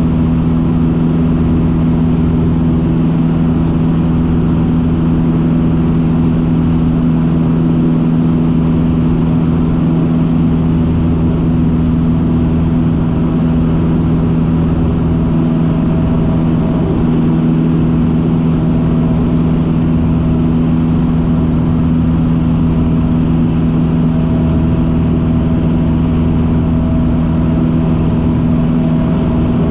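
Cessna 150's Continental O-200 four-cylinder engine and propeller running steadily in flight, heard from inside the cabin as a loud, even drone with a constant low hum.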